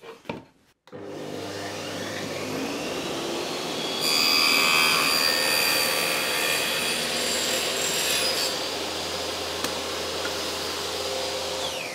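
Bosch table saw switched on about a second in and running up to speed. Its blade cuts through a wooden board held upright in a jig for about four and a half seconds: the second parallel cut that sets the width of a groove. The saw then runs on without load and starts to wind down at the very end.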